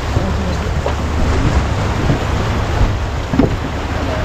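Wind buffeting the microphone over a steady rush of water along a Farr 280 sportsboat's hull as it sails downwind under spinnaker.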